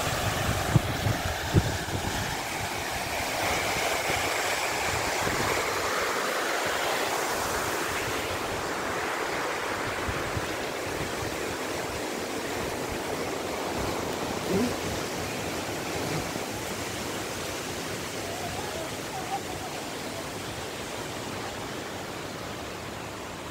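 Rushing water of a rocky waterfall cascade, a steady hiss that slowly grows fainter. A couple of sharp knocks about a second in.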